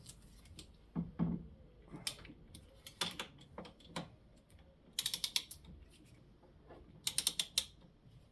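Hand ratchet clicking in two quick runs of rapid clicks while a bolt is tightened, with scattered knocks and clinks of tools and metal parts.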